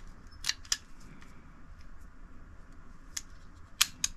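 Sharp metallic clicks from a stainless Taurus 605 snub-nosed revolver as its action is worked by hand: two close together about half a second in, one more about three seconds in, and the loudest pair near the end.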